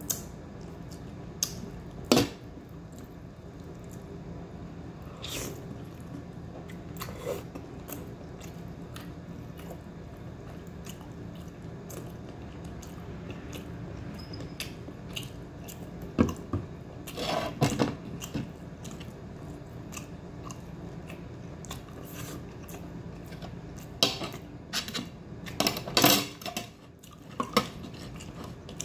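A person chewing and biting food close to the microphone, with occasional clinks of cutlery against a plate and short bursts of louder chewing.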